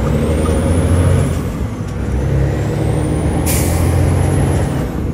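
International semi truck's diesel engine running hard on the Jake brake, swelling twice, with a high whistle that rises and falls each time. A short burst of air hiss comes about three and a half seconds in.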